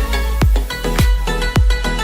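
Electronic background music with a steady kick-drum beat, a little under two beats a second, over a deep bass line and held synth notes.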